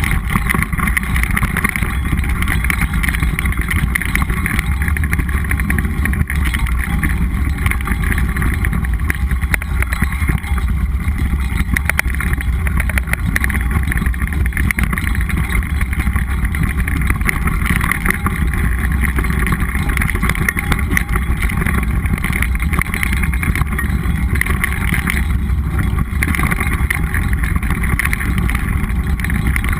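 Mountain bike riding over a dry, rocky dirt trail: a steady low wind rumble on the microphone, tyre noise from the dirt and stones, and constant small rattling clicks from the bike.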